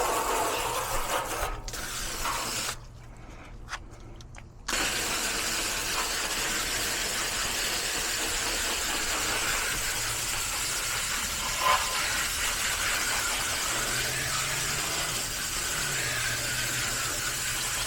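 Air-conditioning condenser unit running: a steady whir of fan and compressor with a low hum. It drops out sharply for about two seconds near the start, then carries on steadily.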